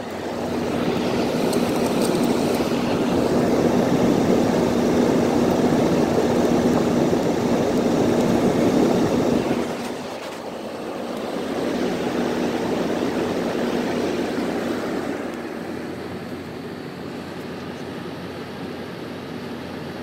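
Haier window air conditioner running: the fan blows a steady rush of air with a steady hum. The sound drops about halfway through, swells again briefly, and settles quieter near the end.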